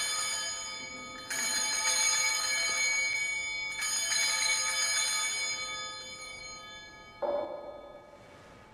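Altar bells (sanctus bells) rung at the elevation of the chalice during the consecration: a ring already sounding, then two more shakes of the bells about one and four seconds in, each ringing out and slowly fading away.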